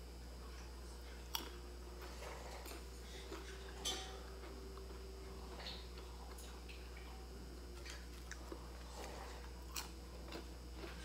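Crunching and chewing of a crispy fried snack (bánh chiên giòn). Two sharp crunches about a second and a half and four seconds in are followed by softer scattered chewing clicks, over a faint steady low hum.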